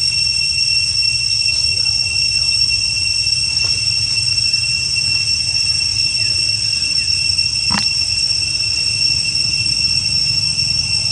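Steady high-pitched insect drone, held at the same pitch throughout, over a low rumble, with one sharp click near the end.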